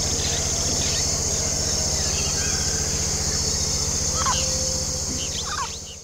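Dusk nature chorus: insects keep up a steady high chorus over a low, fast pulsing drone. A few short bird chirps come through about two, four and five and a half seconds in. The whole chorus fades out near the end.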